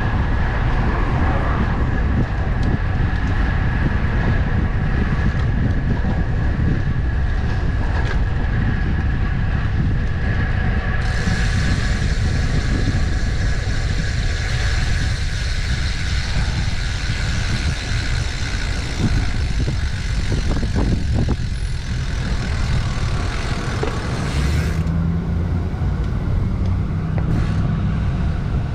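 Steady low wind rumble on the microphone of a camera riding along on a bicycle, with motor traffic passing. A hiss joins about eleven seconds in and fades out near the end, where a vehicle's low engine hum comes in.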